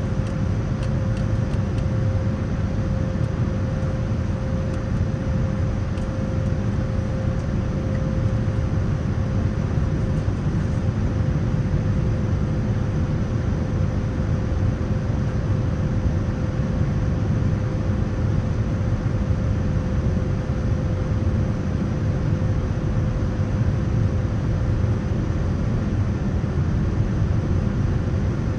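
Boeing 787-9 airliner's steady low rumble with a thin, steady whine above it, unchanging throughout.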